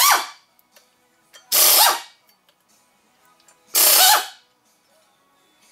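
A power tool running the flywheel bolts on a Honda K20 engine in short bursts: the end of one burst at the start, then two more of about half a second each, a couple of seconds apart. Each burst falls in pitch as the tool stops.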